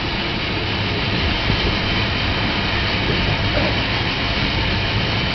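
15-inch gauge steam locomotive of the Romney, Hythe & Dymchurch Railway moving slowly away from a station, steam hissing from around its cylinders over a steady low running noise.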